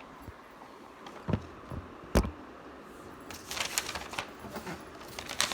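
Handling noise: three sharp knocks in the first half, then a quick run of short clattering and rustling sounds.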